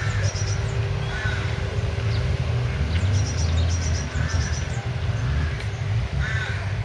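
Ferrari V8 engines idling in a slow-moving queue, a steady low rumble with no revving. A bird's short high chirps come through a few times.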